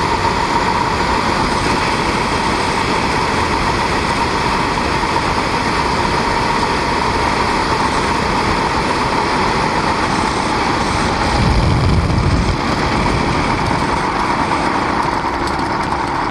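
Weight-shift microlight trike's engine running steadily with a constant whine, over wind rushing on the microphone, during landing and rollout. A brief low rumble comes about twelve seconds in.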